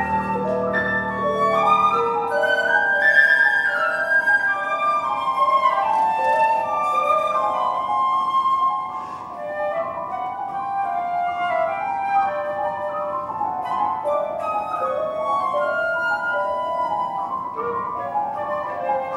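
Concert flute playing quick runs of short notes over grand piano accompaniment in a contemporary classical duo for flute and piano. A low piano note rings under the flute at the start.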